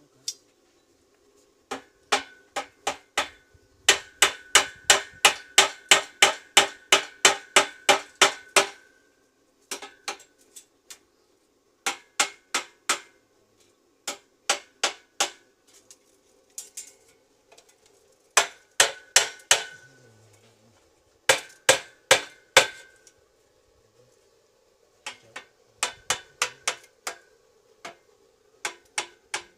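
A hammer striking metal in bursts of rapid blows, up to about four a second, the metal ringing after the heavier strikes. A faint steady hum runs underneath.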